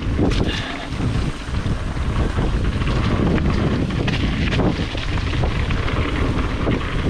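Wind buffeting the microphone of a bike- or helmet-mounted action camera on a fast mountain bike descent, over continuous tyre rumble and the rapid rattling and knocking of a full-suspension mountain bike on rough trail.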